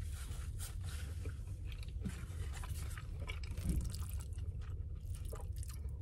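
A person chewing a mouthful of food, with many small scattered mouth clicks, over a steady low hum.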